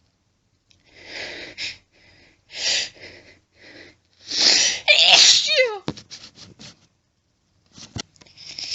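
A woman sneezing in a fit: a string of loud, wet sneezes with breathy hitches between them. The loudest, about four seconds in, ends in a falling cry, and a few short clicks follow. Her nose is itchy and burning after many stifled sneezes.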